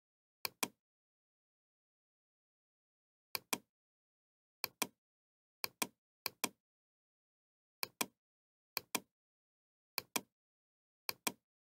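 Computer mouse clicking: nine clicks at uneven intervals, each a pair of quick sharp ticks, with silence between.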